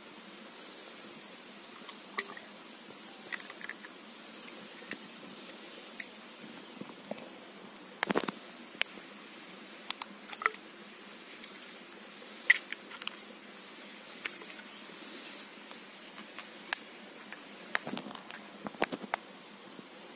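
Eggshells being cracked with a knife blade and broken open over a bamboo tube: scattered sharp taps and clicks, a few coming in quick clusters.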